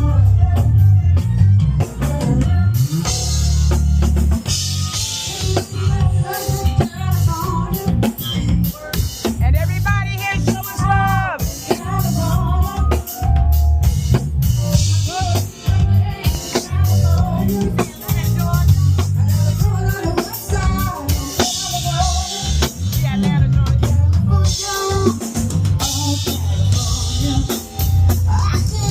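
Live band playing during a sound check: a drum kit with kick and snare over heavy bass, with other pitched instruments on top.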